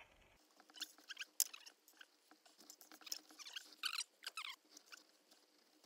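Faint, irregular small clicks and rustles of screws, nuts and plastic mounting parts being handled by hand.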